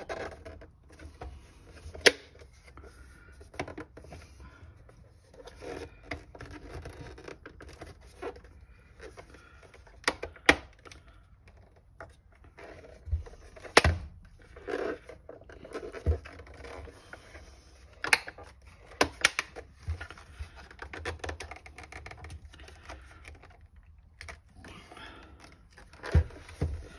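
Plastic clips on a digital instrument cluster's housing snapping into place as it is pressed together by hand: several sharp clicks spread out, with rubbing and handling of the plastic case between them.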